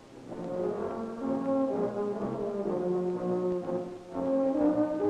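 Background film music led by brass, playing held notes that step from one pitch to the next, with a short dip about four seconds in.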